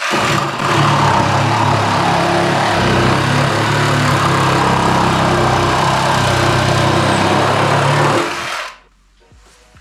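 Makita JR105DZ 12V cordless reciprocating saw running steadily as its blade saws, for about eight seconds, then stopping.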